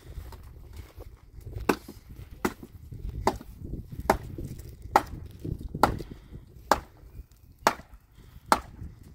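Firewood being chopped: about nine sharp wooden strikes at an even pace, a little under one a second.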